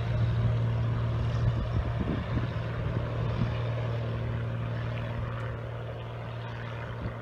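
Piston engine and propeller of a small high-wing light plane droning steadily as the plane climbs away, slowly fading.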